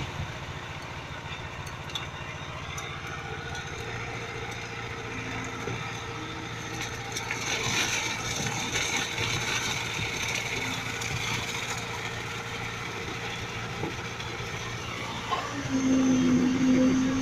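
Concrete pump truck's engine running steadily while pumping concrete through its boom hose into the formwork. Near the end the sound jumps louder, with a steady hum.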